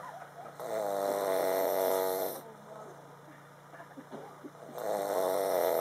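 A person snoring: two long, drawn-out snores, the second starting near the end.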